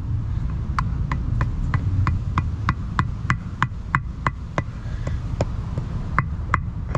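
Rubber mallet tapping a new output shaft seal into a BMW rear differential housing: light, even taps about three a second, each with a short ring, starting the seal straight in its bore without a seal driver.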